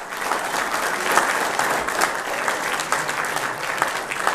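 Audience applauding: many hands clapping together in a dense patter that starts at once and thins to a few separate claps near the end.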